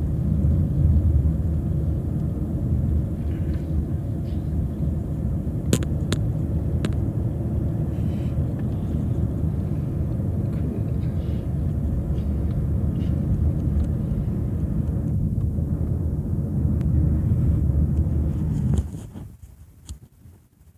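Car driving along a road: a steady low rumble of road and engine noise, with a few sharp clicks about six seconds in. The rumble cuts off sharply near the end.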